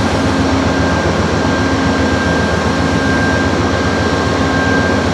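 Diesel locomotive of a standing Amtrak passenger train idling, a loud steady drone with a thin high tone held over it.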